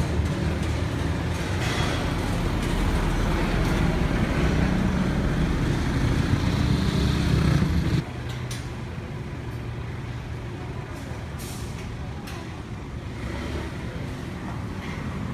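Low, steady rumble of a heavy vehicle's engine running. About eight seconds in it cuts off abruptly to quieter street traffic noise, with a few short clicks.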